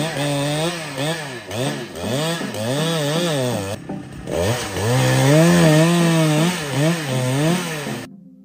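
Two-stroke gasoline chainsaw cutting through a tree limb, its engine revving up and down about twice a second as the throttle is worked under load. It cuts off suddenly near the end.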